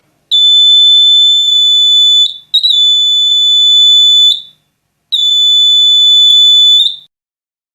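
Electronic buzzer of a homemade LM358 fire-alarm circuit sounding a steady, high-pitched tone, triggered by flame detection. It comes in three long blasts of about two seconds each, with short gaps between them.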